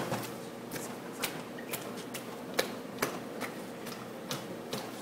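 Spaetzle batter being beaten by hand in a stainless steel mixing bowl: short wet slaps and clicks, about two a second at uneven spacing, as the hand stretches the batter to develop its gluten.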